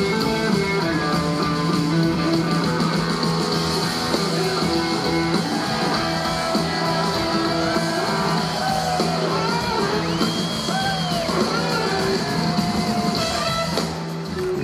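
Live blues-rock band: two electric guitars trading lead lines over bass and drums, with long gliding, bending guitar notes in the second half. The crowd starts to cheer near the end.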